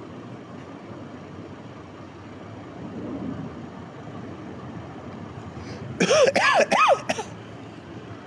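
A man coughing and clearing his throat, three or four loud coughs in a quick cluster about six seconds in, over steady outdoor background noise. His throat is irritated by pepper spray he got in his mouth.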